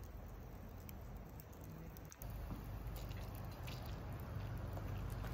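Turban shells grilling on a wire grate over charcoal, their juices faintly bubbling and sizzling, with the embers giving a few small pops and crackles.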